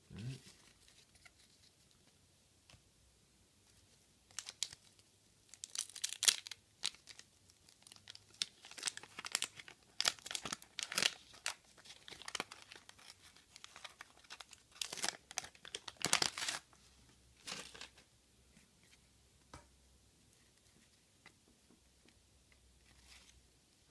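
Wax paper wrapper of a 1985 Garbage Pail Kids Series 1 sticker pack being torn open and crinkled by hand, with sharp crackles and rustles over about a dozen seconds. Near the end there is only faint handling of the stiff cards.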